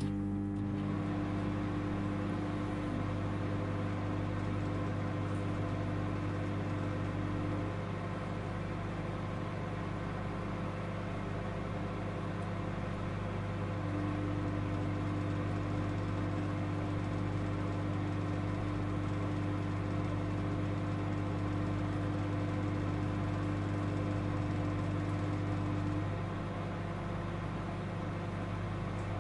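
Microwave oven running: a steady electric hum with a strong low drone. Twice one of its tones drops out for several seconds and the hum gets slightly quieter, then it comes back.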